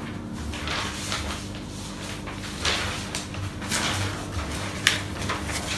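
Sheets of paper rustling and swishing several times as worksheets are handled and handed out, with a sharper click near the end and a few soft low thumps underneath.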